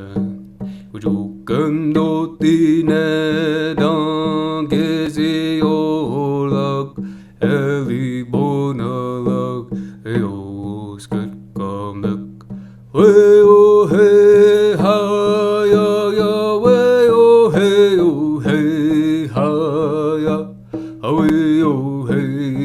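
A song sung in an Algic language: one voice holding drawn-out, wavering notes in a chant-like melody over instrumental accompaniment, growing louder about halfway through.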